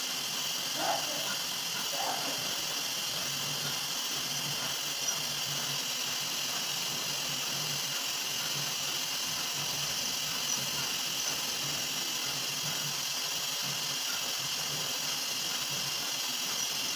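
CNC vertical milling machine running a spot-drilling program on a metal plate: a steady high hiss with a faint low hum that comes and goes.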